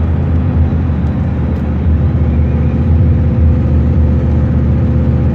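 Heavy truck's diesel engine running steadily with road noise, heard from inside the cab while driving: a constant low drone.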